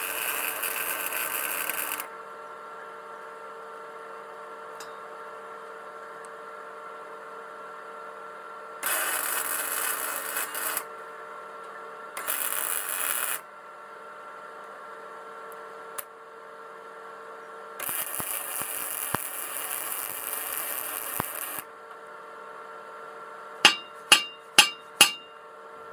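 Arc welding on a steel frame: four runs of steady crackling hiss, the longest about four seconds, over a steady hum. Near the end come five sharp metallic strikes in quick succession.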